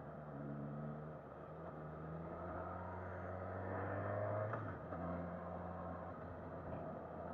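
Suzuki Katana's inline-four engine pulling under throttle. Its pitch rises for a couple of seconds, then drops suddenly about four and a half seconds in as the rider shifts up into second gear, and it pulls steadily on.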